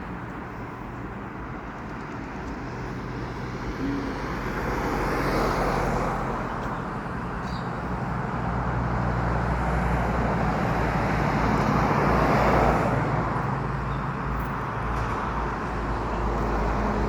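Road traffic passing, a steady rush with a low engine hum that swells twice as vehicles go by.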